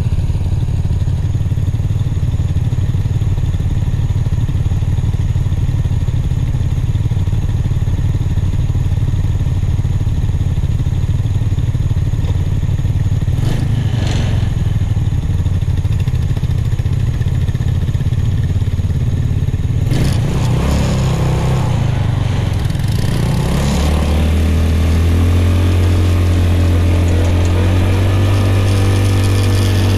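Off-road go-kart engine idling steadily, then revving up about twenty seconds in as the kart pulls away, and settling into a steady, louder running note while driving.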